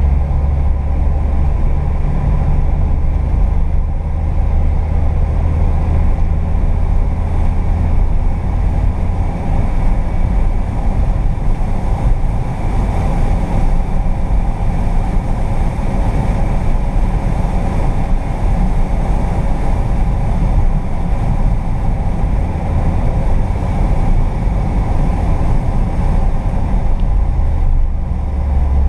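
VW Kombi's rear-mounted 1.4-litre water-cooled four-cylinder running under way, heard from inside the cab with road and wind noise. Its low drone is strong for the first several seconds, eases off about nine seconds in, and grows strong again near the end.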